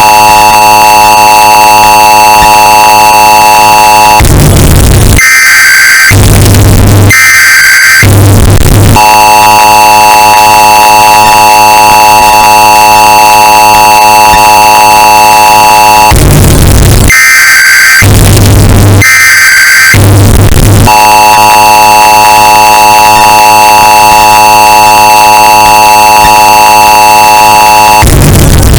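Emergency Alert System tones, bass-boosted and distorted to clipping. The long, steady two-tone attention signal holds for about seven seconds at a time and alternates with clusters of short screeching data bursts, the cycle repeating about every 12 seconds.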